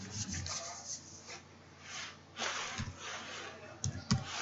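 Mostly quiet, with a few faint puffs of noise and two computer keyboard keystrokes near the end.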